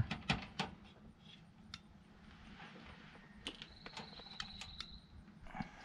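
Faint scattered clicks and taps of multimeter test probes being handled and touched onto a 12-volt battery's terminals. A faint thin high steady tone sounds for about a second and a half past the middle.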